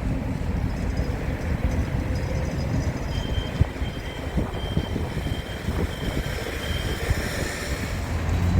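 Rail maintenance vehicle moving during shunting: its engine running with a steady low rumble, with irregular clicks from the wheels on the track and a thin high squeal through the middle of the stretch.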